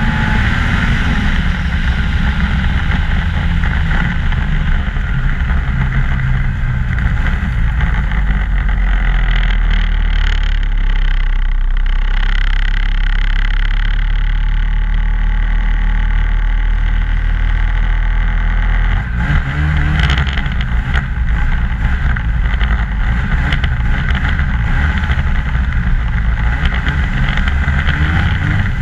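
2014 Ski-Doo MXZ 600 snowmobile running under way, its engine note steady. About two-thirds through the sound shifts abruptly and a few knocks follow.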